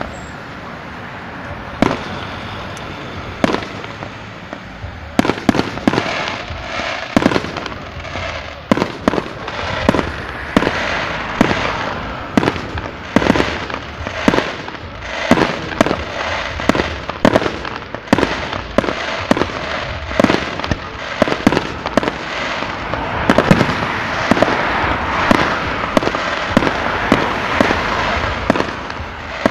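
Fireworks display: aerial shells launching and bursting in a long series of sharp bangs. There are only a few in the first five seconds, then several a second with a dense hiss between them.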